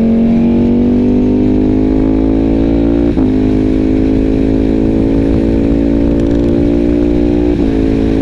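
Ducati Panigale V4's V4 engine under the rider, pulling steadily with its pitch slowly rising. There are two quick breaks, about three seconds in and again near the end, where the gears change. Wind rumble runs underneath.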